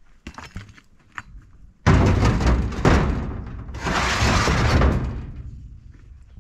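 Stones being loaded into a truck's metal bed: light knocks of rock, then a sudden loud crash about two seconds in, followed by several seconds of clattering that swells again midway before dying away.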